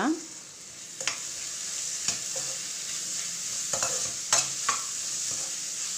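Chopped onions, shallots and ginger-garlic-green chilli paste sizzling steadily in hot oil in an aluminium kadai. A metal slotted spoon stirs them, scraping and clicking against the pan about five times.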